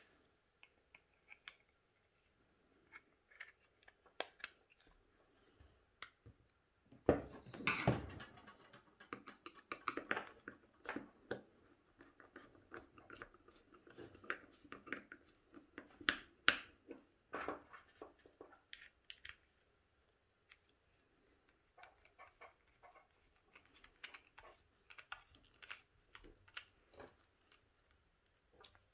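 Scattered small clicks, scrapes and knocks of an Einhell battery pack's plastic casing being fitted together and screwed shut with a hand screwdriver.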